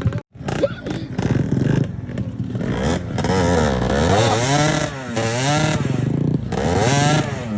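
Motorcycle engine revving hard, its pitch swinging up and down over and over as the throttle is worked, with some clatter in the first couple of seconds.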